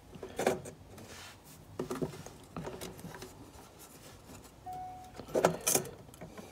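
Handling noise from a stepper motor driver module being shifted around inside a metal controller enclosure: scattered knocks, clicks and light scrapes, loudest as a cluster of knocks about five and a half seconds in.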